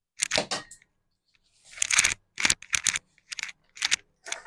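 Slotted steel spatula scraping and stirring thick semolina halwa in an aluminium kadhai, a string of short, irregular scrapes, the loudest about two seconds in.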